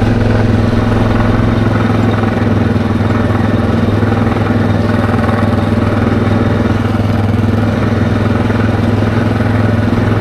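ATV engine running steadily while the ATV rides along, a constant low hum with no change in pitch or level.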